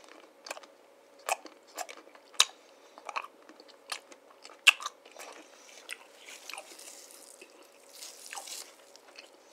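Crisp cookie crunching in sharp separate bites, about one every half second to second, the loudest about four and a half seconds in. It gives way to a soft rustle near the end.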